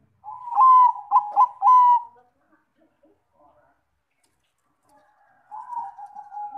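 Zebra dove (perkutut bangkok) cooing: a quick run of about four clear, ringing notes in the first two seconds, then a lower, longer coo near the end.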